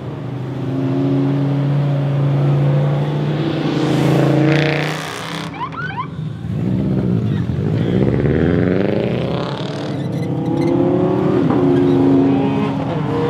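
Cars driving past one after another with their engines running. About halfway through, an engine revs, its pitch sweeping up and down.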